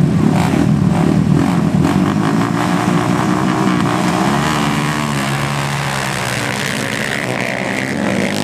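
A pack of dirt-track motorcycles revving at the starting line, then accelerating away together about halfway through, their engine notes rising and falling.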